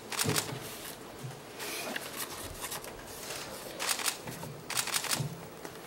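Press cameras' shutters firing in short rapid bursts, four times, a second or two apart.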